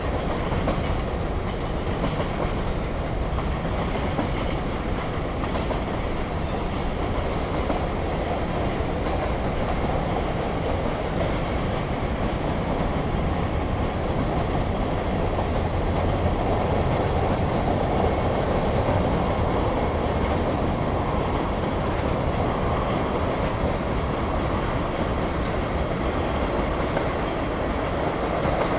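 Cars of a CSX mixed freight train rolling past: the steady noise of steel wheels on the rails.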